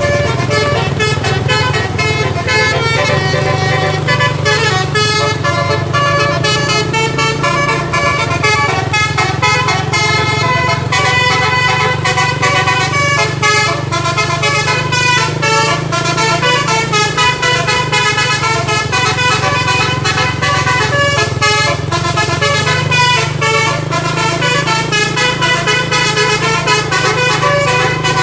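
Bus telolet musical air horn playing a continuous melody of short pitched notes that change several times a second, over the steady low hum of the bus's diesel engine.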